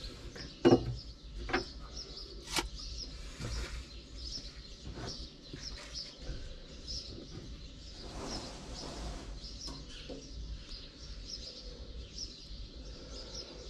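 Small birds chirping repeatedly. A few sharp clicks and knocks come in the first three seconds.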